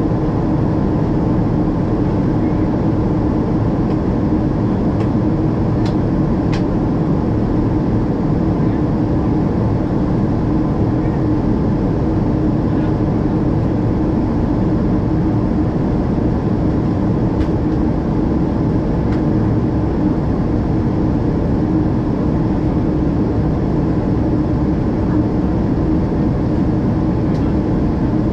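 Steady cabin noise inside a Boeing 777-200ER in flight: the rush of air along the fuselage and the hum of its Rolls-Royce Trent 892 engines, with one steady low tone under it. A few faint clicks come about five to six seconds in.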